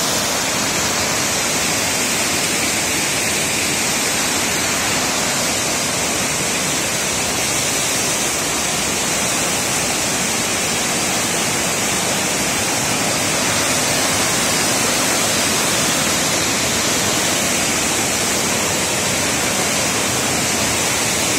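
Elephant Falls' white water rushing steadily over rocks, an even hiss that runs on without a break.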